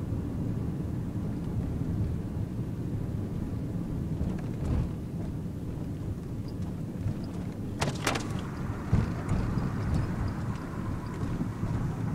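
Nissan NV200 van heard from inside the cabin while driving at low speed: a steady low engine and road rumble. A couple of sharp knocks come close together about eight seconds in.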